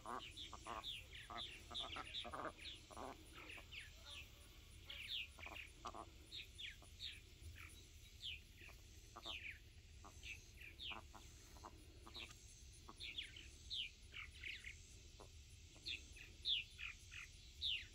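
Faint, repeated short falling chirps from birds, with lower calls mixed in during the first several seconds. A steady fast pulsing from insects runs high above them.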